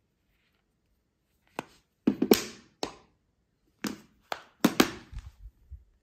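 Near silence, then from about a second and a half in a series of sharp clicks and knocks at uneven intervals: a Samsung Galaxy Z Flip 3 being handled, folded shut and set down on top of a robot vacuum cleaner.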